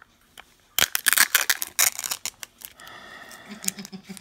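Thin plastic capsule segment of a Zuru 5 Surprise Mini Brands ball being pried open by hand: a quick run of sharp clicks and crackles about a second in, lasting about a second, then softer handling sounds.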